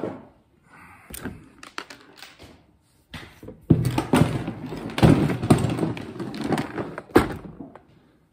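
Loose LEGO tires rattling and knocking in a plastic storage bin as they are handled by hand: a few separate clicks at first, then about four seconds of dense clattering with heavy knocks, ending on one loud knock.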